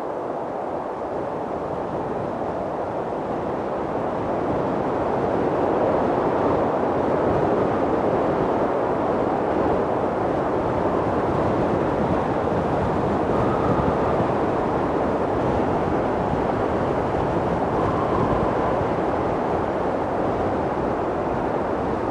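Strong mountain wind blowing steadily, swelling a few seconds in and holding, with faint brief whistles about two-thirds of the way through.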